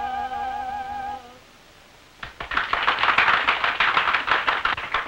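A woman's voice holds the last sung note of a song with a wide vibrato, breaking off about a second in. After a brief pause, a small group of people claps, starting about two seconds in and running on to the end.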